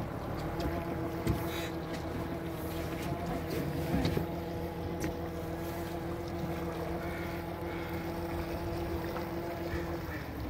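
Boat engine running steadily: a low, even hum with a faint steady whine above it, which drops away near the end. Wind on the microphone.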